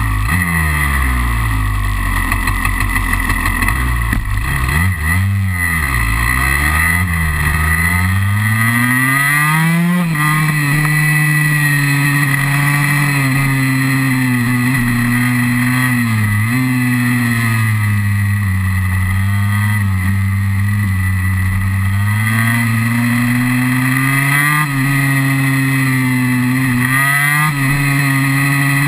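KTM SX 144 two-stroke single-cylinder engine heard from on board while riding a track: revving up and down through the gears for the first ten seconds or so, then held at a steady high note with brief dips, climbing again near the end.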